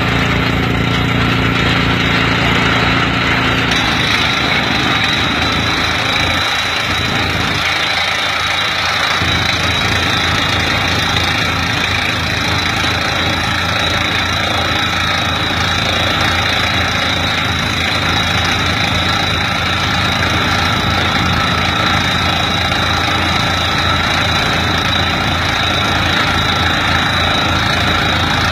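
Tractor engine running steadily, powering a tractor-mounted water well drilling rig's hydraulics through the PTO, with a low, evenly pulsing rumble. About four seconds in the sound shifts, the low hum dropping away.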